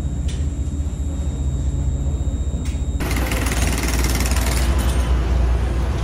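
A motor vehicle's engine running with a low steady rumble and a faint high whine. About three seconds in, the sound changes abruptly to a louder, hissing rush of moving traffic over the same low rumble.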